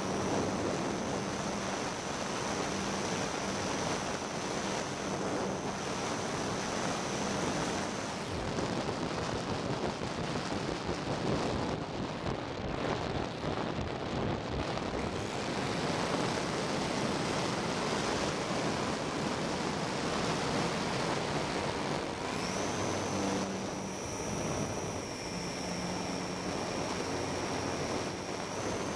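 Wind rushing past a radio-controlled model aircraft in flight, heard from its onboard camera, with the thin whine of its motor. The motor whine drops out about a third of the way in and comes back with a short rise about three-quarters through.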